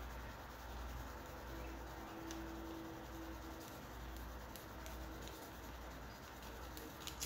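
A small white pad rubbed back and forth on the black plastic of a G1 Megatron toy, working out a gouge: faint, steady scratchy rubbing with a light click near the end.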